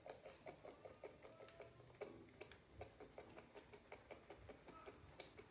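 Faint, irregular light ticks as ground paprika is sprinkled by hand from the fingertips over chopped tomatoes and peppers in a frying pan.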